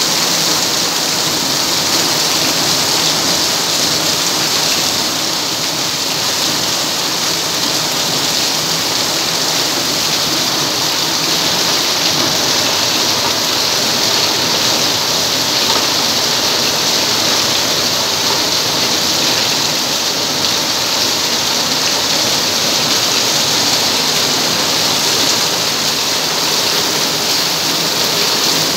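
Heavy rain pouring down and splashing on wet paved ground, a loud, steady hiss.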